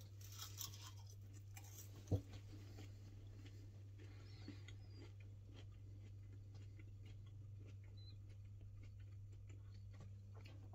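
Faint chewing of a mouthful of chips over a steady low hum, with one soft thump about two seconds in.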